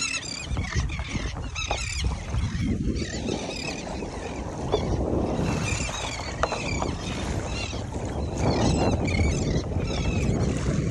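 A flock of seabirds calling over open water, with repeated short, high, wavering cries in bursts. Under them runs a steady rush of wind and choppy water against the kayak, growing louder in the last few seconds.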